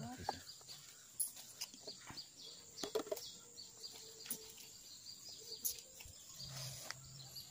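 Scattered light clicks and metal taps of a wrench working on a motorcycle front fork leg, over quiet outdoor background with birds chirping. A low hum comes in near the end.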